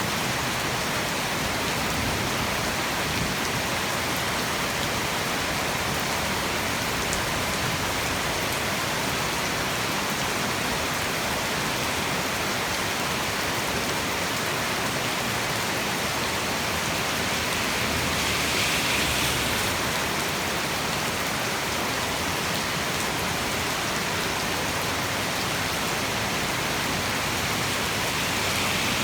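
Heavy tropical rain falling steadily: a continuous hiss of rain on surfaces, swelling slightly about two-thirds of the way through.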